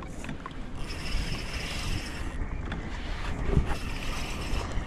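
Wind buffeting the microphone, with water moving against a kayak. A thin, steady, high whir comes in about a second in and again past the middle.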